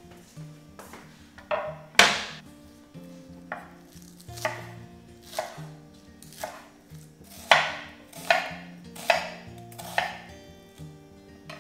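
A chef's knife chopping green onions and an onion on a wooden cutting board: single sharp knocks of the blade on the board, roughly one a second and unevenly spaced, with a louder knock about two seconds in.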